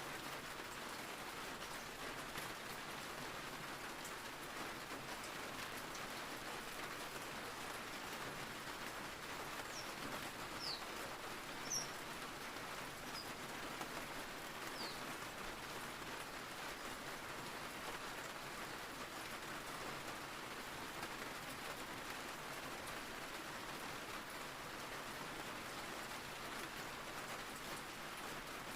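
Steady rain falling, an even hiss of drops. A few short, high chirps break through near the middle.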